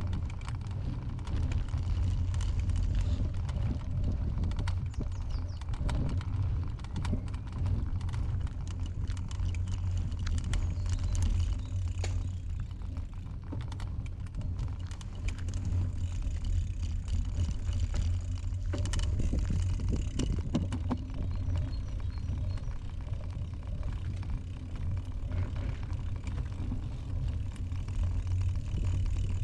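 Bicycle being ridden over a rough path: a steady low rumble of wind on the microphone, with frequent small clicks and rattles from the bike.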